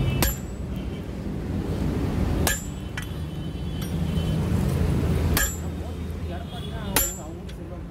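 Hand hammer striking the red-hot flattened end of a 20 mm rebar on an anvil, forging a crowbar tip: four slow, single blows a couple of seconds apart, each with a short metallic ring. A steady low hum runs underneath.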